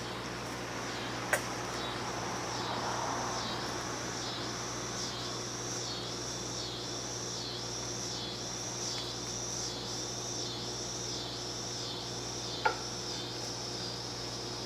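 Two sharp metallic clicks, one about a second in and one near the end, from hand tools on the bracket bolts. Behind them an insect chirps in a steady high pulse about once a second over a low steady hum.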